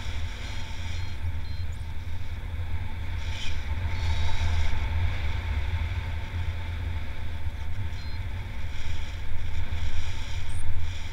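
Wind buffeting the camera microphone of a paraglider in flight: a steady low rumble of airflow that swells in gusts a few times.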